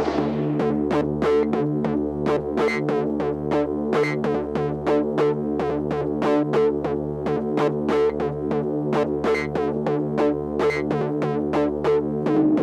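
Synthesizer electronic music: a sustained drone chord under a fast sequenced pattern of short, plucked notes, about four a second.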